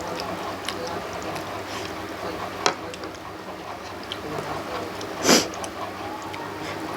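Eating by hand: soft mouth and chewing clicks over a steady background hum, with a sharp click near three seconds in and a louder brief rush of noise about five seconds in.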